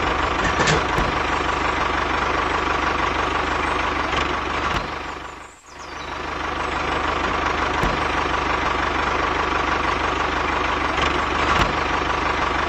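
Mini model tractor running steadily, an engine-like mechanical drone, which fades down and comes back about five and a half seconds in.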